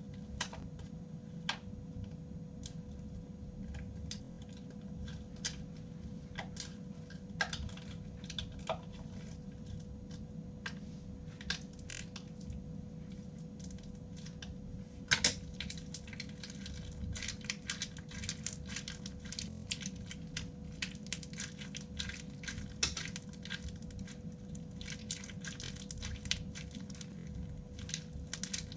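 Crunchy slime with beads mixed in being squeezed and kneaded by hand, giving scattered crackling clicks that become dense and continuous after a louder snap about halfway through. A steady low hum sits underneath.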